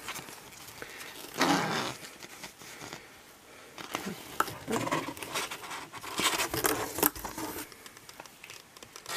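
Clear plastic packaging sleeve of a set of metal cutting dies rustling and crinkling as it is handled and the die card is slid out, in several short bursts with a sharp click about seven seconds in.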